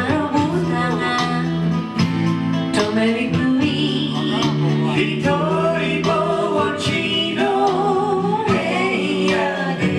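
Live small-group music: a sung melody over acoustic and electric guitar with flute, the low notes holding steady beneath the voice.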